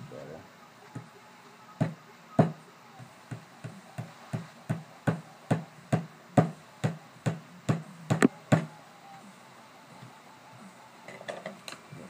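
Hammer tapping a small piece back into a snowboard binding: a steady run of sharp knocks, about two to three a second, which starts a couple of seconds in and stops about two-thirds of the way through.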